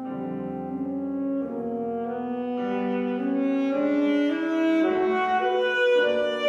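Alto saxophone playing a slow melody of sustained notes with piano accompaniment, climbing in pitch and growing louder toward the end.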